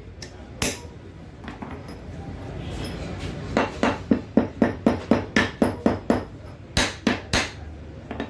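Hammer blows on metal on a Sonalika tractor's rear axle during a seal replacement. A single strike comes first, then a quick run of about a dozen blows at roughly four a second, then three more blows.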